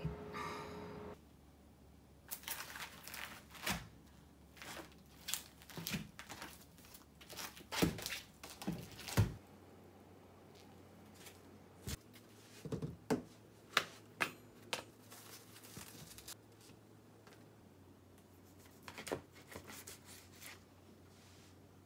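Plastic food wrap and plastic bags crinkling and tearing in sharp, irregular crackles as a wrapped supermarket tray of raw chicken breasts is unpacked. Before that, a steady tone cuts off about a second in.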